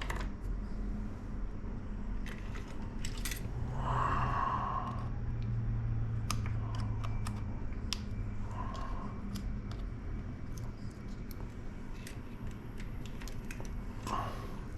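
Scattered light clicks and taps of small tools and parts being handled during a laptop repair, over a steady low hum, with a few short soft rustles.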